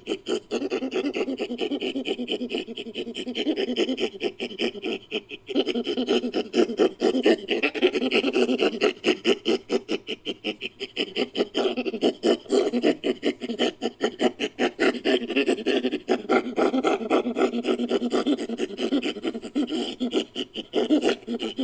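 Made-up ape call built from chimpanzee and orangutan recordings: a long, fast run of panting, pulsing grunts, with a brief break about five seconds in.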